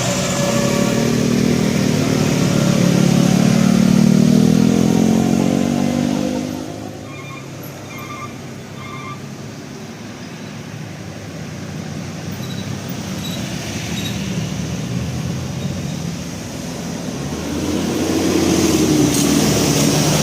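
Heavy road traffic: a vehicle engine passes close by, its pitch climbing as it goes, then fades about six seconds in. Three short faint beeps follow, and another vehicle approaches near the end.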